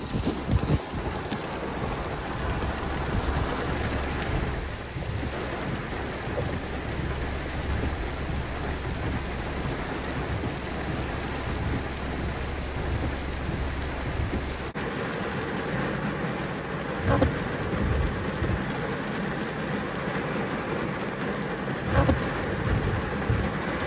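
Heavy rain pouring steadily, with a steady low rumble underneath that cuts off about fifteen seconds in. After that the rain sounds thinner and closer, pattering on a car's window glass, with two sharp taps near the end.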